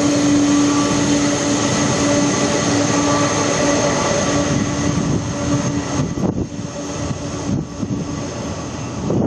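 Jet engines of a Boeing 747-400F freighter under take-off power, a loud steady rush with a low hum and a high-pitched fan whine. The sound drops somewhat about six seconds in as the aircraft moves away.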